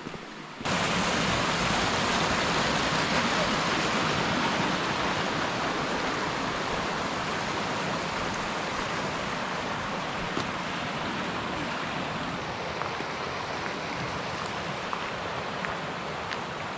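A mountain stream rushing over rocks: a steady, even rush of water that comes in suddenly just under a second in.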